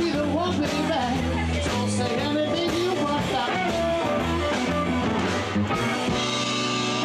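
Blues band playing: guitar over a steady bass line, with a wavering lead melody, and a held chord near the end.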